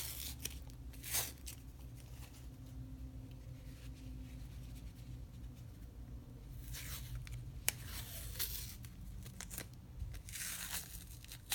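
Very soft packing material being pulled apart and torn by hand to unwrap an item: a few short tearing, crinkling rustles with quieter stretches between, and one sharp click about two-thirds of the way through.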